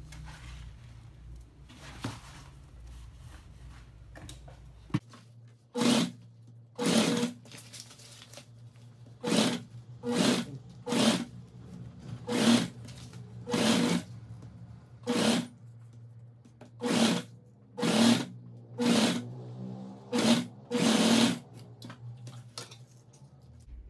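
Domestic sewing machine stitching in about fourteen short runs of under a second each, starting about five seconds in, with a low hum between runs.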